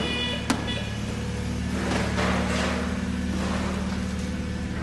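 Vehicle engine running steadily at low revs, with a single sharp metallic clank about half a second in and a brief rushing noise around two seconds in.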